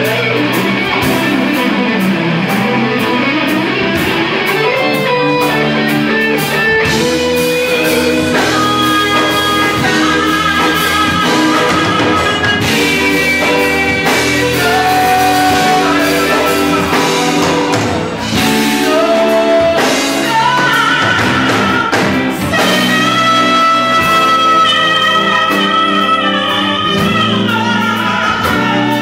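Funk band playing live and loud, with electric guitar, bass and drums under a sung vocal line.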